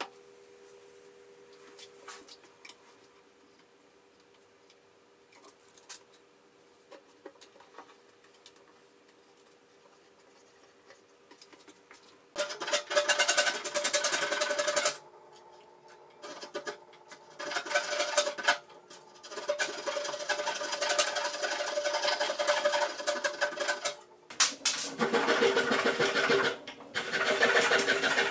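For about twelve seconds there are only a few faint light wooden clicks as thin strips are handled. Then a flush-cut hand saw trims oak strips flush with the workpiece in runs of quick back-and-forth strokes, stopping briefly between runs.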